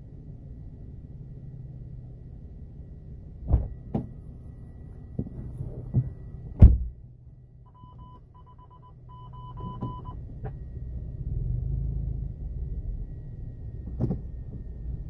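Low engine rumble inside an idling car, growing stronger in the last few seconds as the car starts to move. Several sharp knocks and clicks come in the middle, and a short run of high beeps sounds about eight seconds in.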